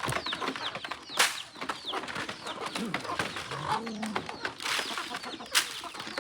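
A flock of free-range chickens calling while feeding: a constant stream of short, high, falling peeps with a few low clucks or coos in the middle. There are two sharp clicks, one about a second in and one near the end.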